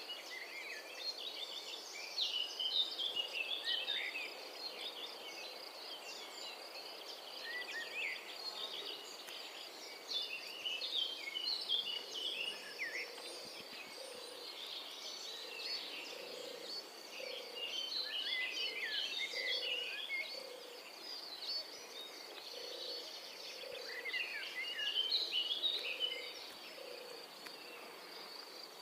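Birds chirping and twittering in repeated bursts over a steady, high-pitched insect drone, with a low note repeating about once a second through the middle.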